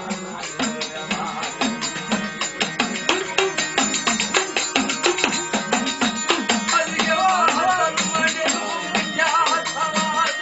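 Gujarati folk music with a fast, steady drum rhythm and jingling percussion. A wavering melodic line comes in over it in the second half.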